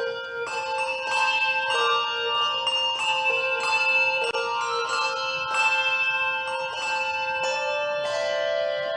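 Handbell choir playing a slow chorale: chords of handbells struck together every half second to second, each chord ringing on and overlapping the next.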